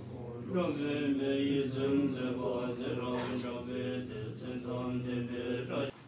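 Men chanting a prayer together, a steady recited chant of held notes that cuts off abruptly near the end.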